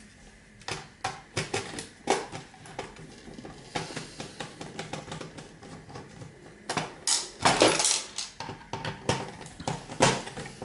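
Small screwdriver and hands working on a game console's circuit board and plastic case: scattered clicks, taps and scrapes of hard plastic and metal, with a longer, louder scrape about seven to eight seconds in.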